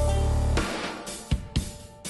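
Background music with a heavy bass line, drum hits and guitar.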